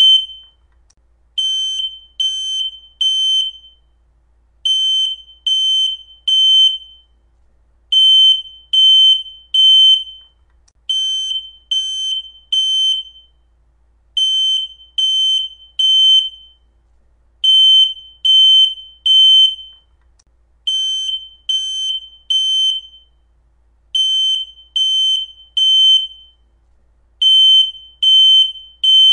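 Smoke detector sounding its alarm: loud, high-pitched beeps in groups of three, about one a second, with a short pause between groups, repeating steadily. The three-beep pattern is the standard temporal-3 fire alarm signal, not a low-battery chirp.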